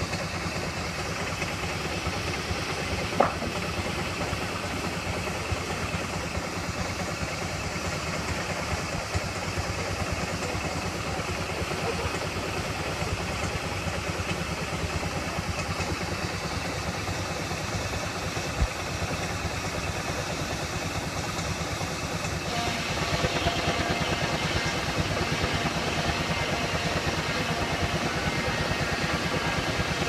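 Steam traction engine running steadily while belted to a sawmill, with a low, even, rhythmic beat. There are two sharp knocks, one a few seconds in and one just past halfway. About three-quarters of the way through, the sound gets louder and a higher steady hum joins in.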